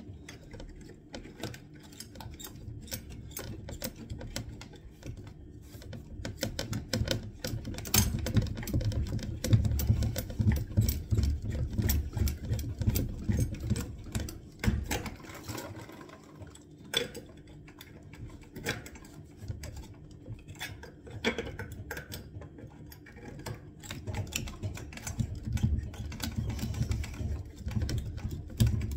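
Pipe slice cutter being worked round copper water pipes: a fast, rhythmic clicking and scraping that comes and goes as each pipe is cut through.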